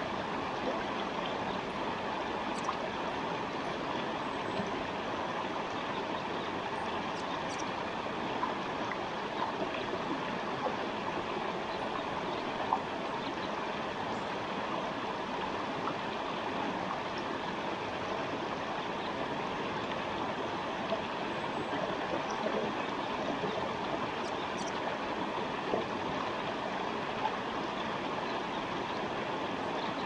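Forest stream running steadily, an even rush of flowing water with brief louder splashes here and there.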